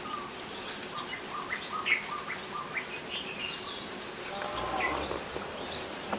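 A steady, high insect trill, with scattered short rising bird chirps over it and a few lower falling bird notes about two-thirds of the way in.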